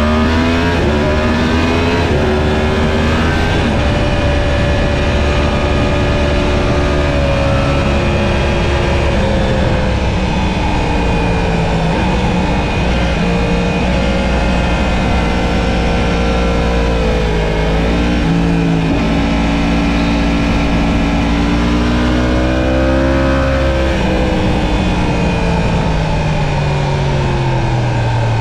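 Sport motorcycle engine heard onboard at racing speed, its revs climbing and falling with the gears, dropping sharply about two-thirds of the way through and falling again near the end, over steady wind rush.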